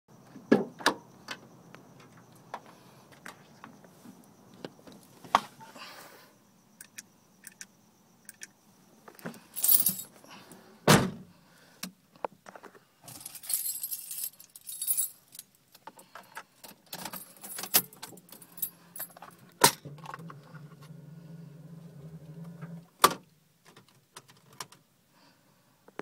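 Metallic jangling, like a bunch of keys, with scattered sharp clicks and knocks from things being handled in a car cabin, over a low steady hum. The loudest knocks come at about half a second, 11, 20 and 23 seconds in.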